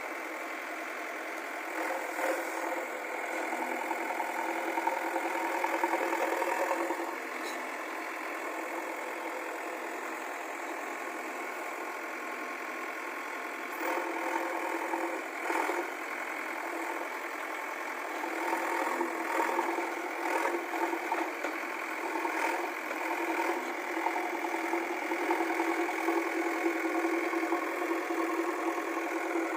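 JCB backhoe loader's diesel engine running, swelling louder for several seconds at a time as it works and then dropping back to a steady idle.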